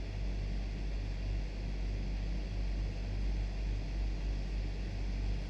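Steady background hiss with a low, even hum underneath: the recording's room tone and microphone noise, with no distinct events.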